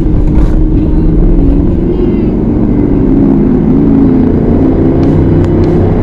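Car engine and road noise heard from inside a moving car: a steady, loud low drone.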